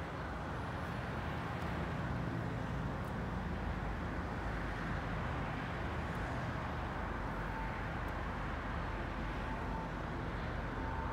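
Steady outdoor background noise with a low rumble, typical of urban surroundings; a faint steady tone comes in during the last few seconds.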